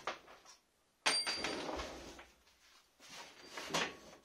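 Wooden bowl rings being handled on a wooden workbench: a few knocks and scrapes of wood on wood, with a sudden louder clatter about a second in that fades away, and short knocks near the end.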